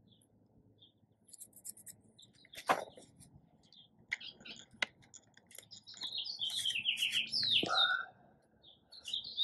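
Songbirds chirping, busiest in the second half with a quick run of short falling chirps. A sharp click about three seconds in and a lighter one near five seconds come from handling the plastic Bug-A-Salt Shred-ER salt gun.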